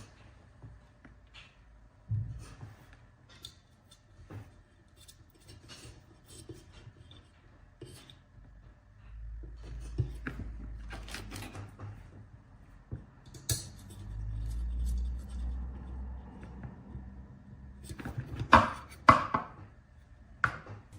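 Hands working with small parts and tools on a workbench: scattered clicks, taps and rubbing, with a few louder sharp clicks near the end.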